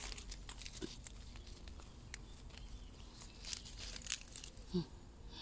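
Oyster mushroom cluster being torn off a rotting log by a gloved hand: soft tearing and crackling of mushroom flesh and loose bark, with scattered small ticks.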